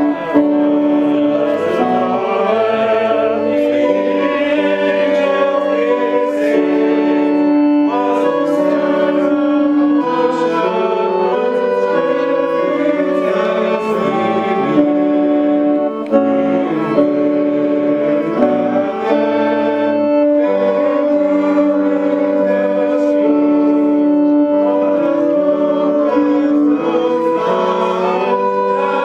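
Yamaha electronic keyboard playing long held chords, with a group of people singing along.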